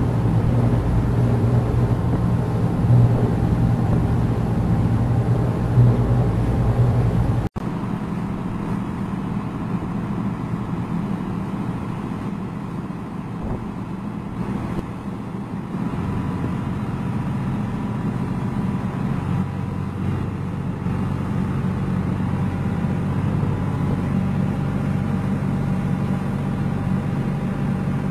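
Boat diesel engines running steadily at speed, mixed with rushing water and wind. The sound cuts out abruptly about seven seconds in, then carries on as a slightly quieter, steadier engine hum.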